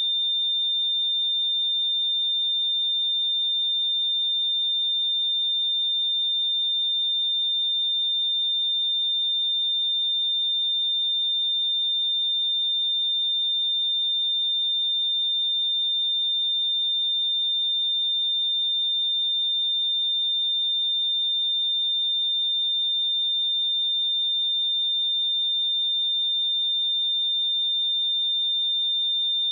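A pure 3605 Hz sine-wave test tone, a single steady high-pitched tone held without any change in pitch or loudness.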